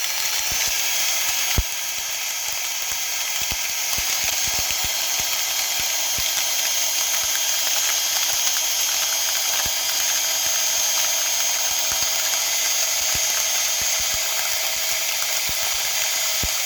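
Ridgid cordless drill running steadily, spinning a pepper mill's grinder to grind peppercorns, with a constant motor whine and scattered sharp clicks.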